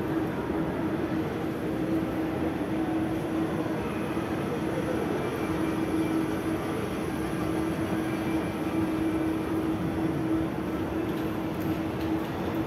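Steady indoor shopping-mall ambience: a constant low hum over an even wash of background noise, with no distinct events.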